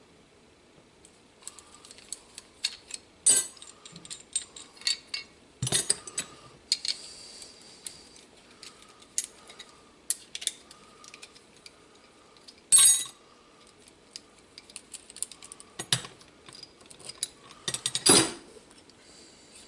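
Metal hand tools at work on steel brake line: irregular ratchet-like clicking, scraping and light clanking, with a handful of sharper metal knocks.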